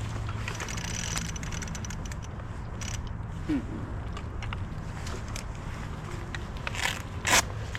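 Scattered clicks, a brief squeak and short scraping rasps from rope being worked around a GRCS rigging winch, the loudest scrape near the end, over a steady low engine hum.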